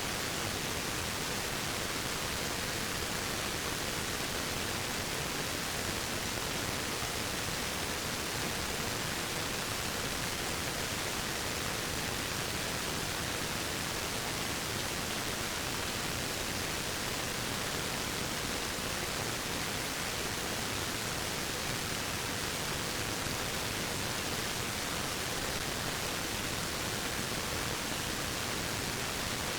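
Waterfall: a steady, even rush of falling water, hissy and bright, with no change in level.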